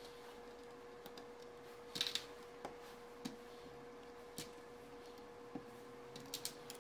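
K'nex plastic rods and connectors clicking and knocking as the model is handled and its parts moved: scattered single clicks, the loudest cluster about two seconds in and a quick run of clicks near the end. A faint steady hum lies underneath.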